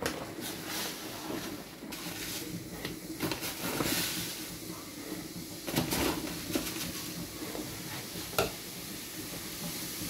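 Oxygen bleach powder fizzing in a pot of hot water, a steady hiss, with a few light clicks near the pot about six and eight seconds in.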